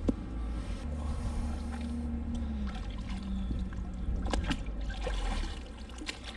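Canal water trickling and dripping off a magnet-fishing rope and magnet as it is hauled in, with a few sharp clicks. A low steady hum runs underneath for a couple of seconds.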